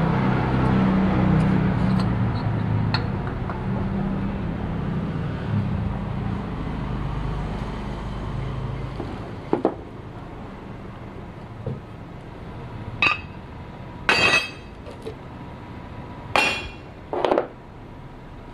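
A motor running with a low hum that fades away over the first half, then about five sharp metallic clinks, some of them ringing briefly, as of metal parts or tools being set down or knocked together.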